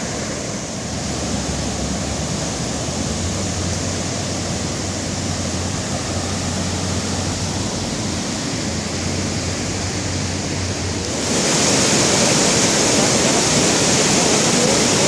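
Boulder Creek in flood, its swollen water rushing steadily with a low rumble under the hiss. About eleven seconds in the rush turns abruptly louder and brighter.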